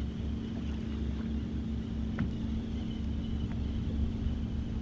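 Steady low rumble of wind and water around a bass boat, with a constant low hum and one faint click about two seconds in.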